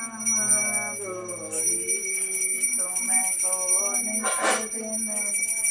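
Voices singing a Hindu devotional song, the aarti of a puja, with a hand bell ringing steadily throughout.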